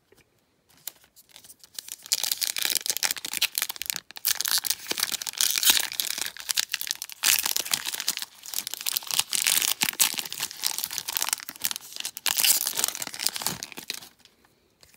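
Foil wrapper of a Panini Prizm football card pack being torn open and crumpled: a dense, crackling rustle that starts about two seconds in and stops near the end.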